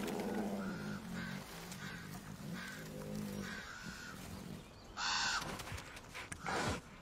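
Common ravens calling: repeated short croaks, with a loud harsh call about five seconds in and another near the end. A low wavering tone runs underneath for the first three seconds or so.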